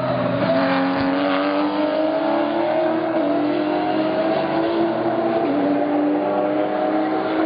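GT race car engine pulling hard under full throttle, its pitch climbing slowly, with two upshifts about 3 and 5.5 seconds in.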